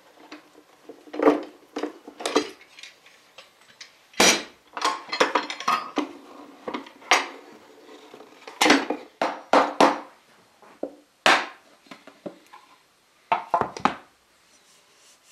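Metal bar clamps being unscrewed and taken off a glue-up, clanking and knocking against wooden clamping blocks and the workbench in a series of sharp, irregular clanks.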